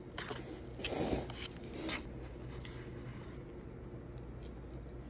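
Wooden chopsticks stirring and scraping through instant ramen noodles in a paper cup: a few rubbing scrapes in the first two seconds, the loudest about a second in, then quieter handling as noodles are lifted out.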